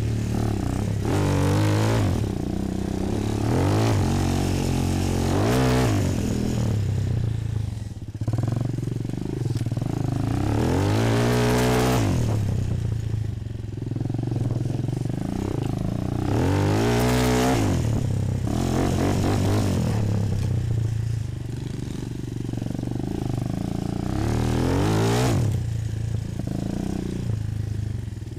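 Bashan 250 quad's four-stroke single-cylinder engine under way, the throttle opened and shut again and again so that the engine note rises and falls every few seconds, with hard rev-ups about a second, twelve seconds and seventeen seconds in.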